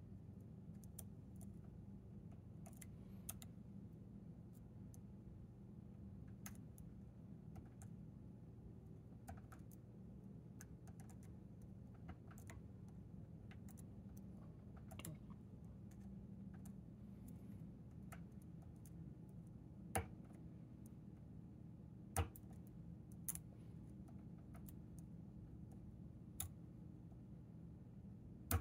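Small, irregular metal clicks and ticks of a hook pick working the pin stacks of a Chicago Lock Co tubular lock under tension, with a few sharper clicks in the second half. A low steady hum runs underneath.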